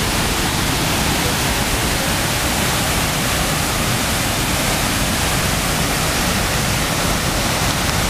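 Waterfall pouring close by: a loud, steady rush of falling water that does not change.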